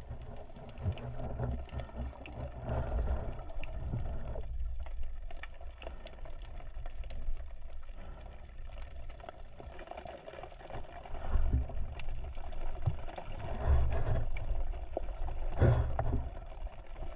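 Water movement heard underwater through a camera's waterproof housing: a muffled low rumble with scattered soft clicks and knocks. It swells louder several times, most strongly in the last few seconds.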